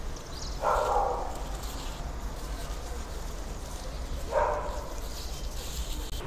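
Two short animal calls, each about half a second, about three and a half seconds apart, over a steady low background hum.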